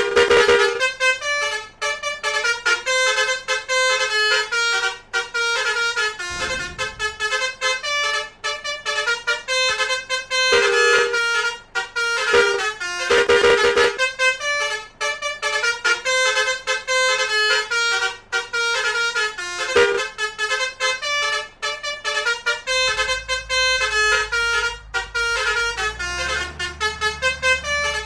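Basuri musical 'telolet' horns playing quick, repeating melodic runs of trumpet notes one after another, several horns overlapping. A low rumble comes in near the end.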